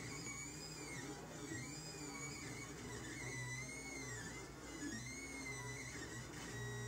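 Lulzbot Mini 3D printer running a print: its stepper motors whine with a pitch that sweeps smoothly up and down about once a second as the print head moves, over a low hum that switches on and off.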